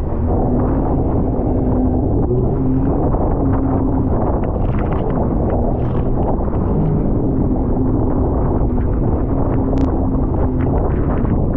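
Sea-Doo Spark Trixx jet ski engine running steadily, with wind buffeting the microphone.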